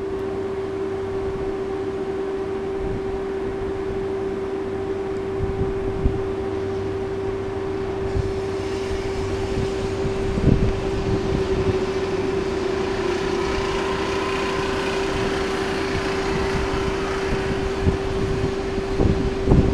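SNCF regional electric multiple unit pulling slowly into a station, with a steady electric hum throughout. A few wheel knocks and rolling noise that grows louder from about eight seconds in as it nears.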